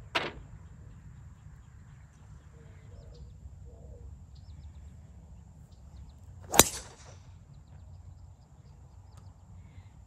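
A golf ball drops into the cup with a short knock right at the start. About six and a half seconds in, a driver strikes the ball off the tee with a loud sharp crack.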